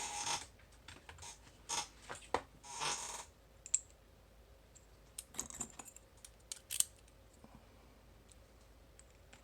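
Small metal padlock parts clicking and rattling as the lock's core is taken apart by hand: a cluster of clicks and scrapes in the first three seconds, a few more in the middle, then quiet handling.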